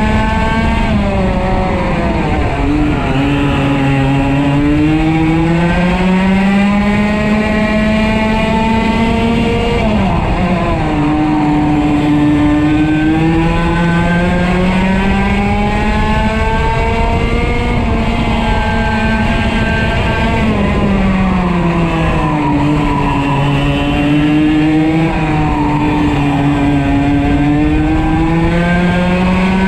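125cc two-stroke kart engine heard on board at racing speed, its note rising through the gears-free straights and dropping under braking into corners, about three times: falling around 3 seconds in, again near 11 seconds and near 21 seconds, then climbing back each time.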